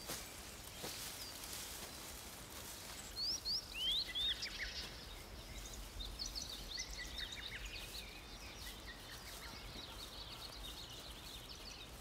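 Wild birds singing over a faint steady outdoor background: a short run of quick sweeping whistled notes about three to five seconds in, the loudest part, followed by softer scattered chirps.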